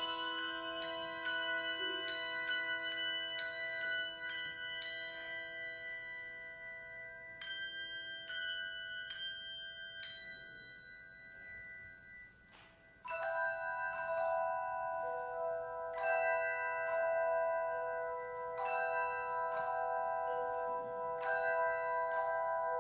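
Handbell choir ringing a slow piece: struck brass handbells sound single notes and chords that ring on and overlap. The ringing fades almost away about twelve seconds in, then a fuller, louder chord enters and rings with further strikes.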